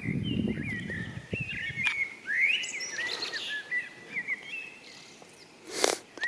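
A songbird singing: a run of quick chirps and short whistled slides. There is some low rumble in the first second and a brief burst of noise near the end.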